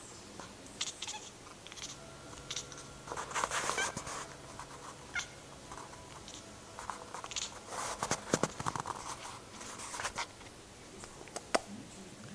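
A cat making weird short noises while it watches a laser pointer dot. The noises come in choppy clusters, one a few seconds in and a longer run in the second half.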